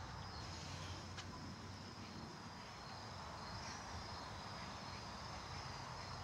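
Faint outdoor ambience: insects such as crickets trilling steadily at a high pitch over a low background rumble, with one faint tick about a second in.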